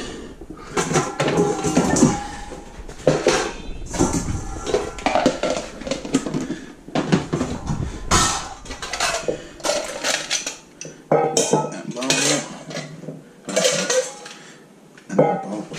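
Metal kitchenware clattering: stainless steel bowls, pans and utensils taken from a cupboard and handled, in a run of sharp clinks and knocks that thins out near the end.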